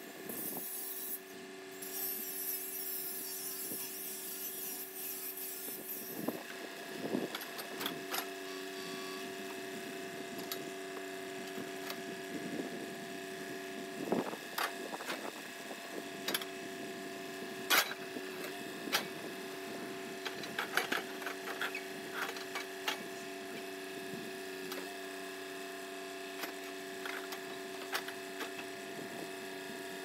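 Hand work on a bulldozer's steel frame: a scraping, rasping noise for the first several seconds, then scattered clanks and knocks, all over a steady hum.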